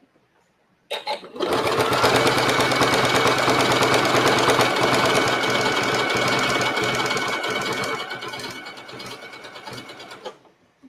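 Sewing machine stitching through leather scraps. It starts about a second in and runs steadily with a fast even rhythm, then runs more quietly for its last two seconds before stopping near the end.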